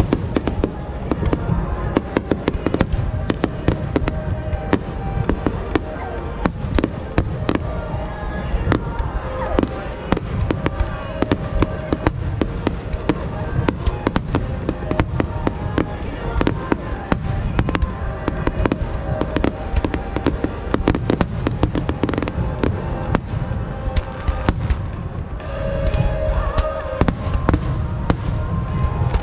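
Aerial fireworks display going off without pause: many sharp bangs and crackles a second over a continuous low rumble of booms.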